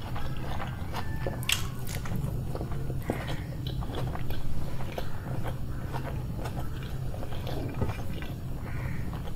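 Close-miked eating: a person biting and chewing food, with many short sharp clicks and a few louder crunches, over a steady low hum.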